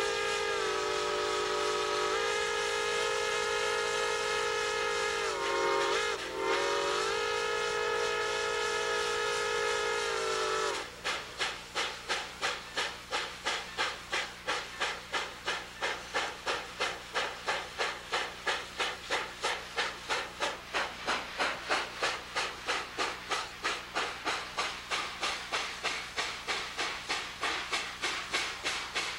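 Steam locomotive 614, a 4-8-4, blowing its whistle in one long blast of several tones sounding together, with a brief dip about six seconds in and a drop in pitch as it cuts off near eleven seconds. The engine then works steam, its exhaust chuffing evenly at about three beats a second.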